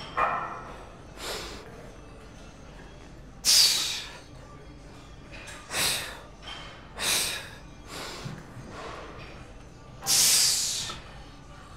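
A weightlifter's heavy, forceful breaths during a hard set at 405 pounds, about eight of them at uneven one-to-two-second gaps. The loudest come about three and a half seconds in and near the end.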